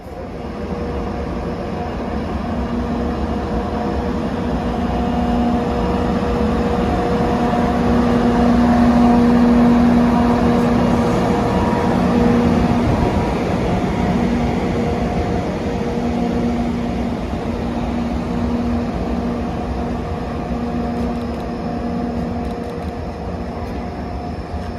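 JNR EF64 1031 electric locomotive running light at low speed, a steady hum over the rumble of its wheels on the rails. It grows louder as the locomotive passes close, then slowly fades as it moves away.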